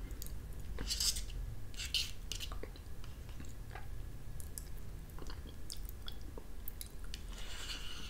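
Close-up mouth sounds of eating a thick, creamy protein yogurt: soft chewing and lip smacking, with scattered small clicks as a tiny fork scoops from the plastic cup. Brief louder smacks come about a second and two seconds in and again near the end.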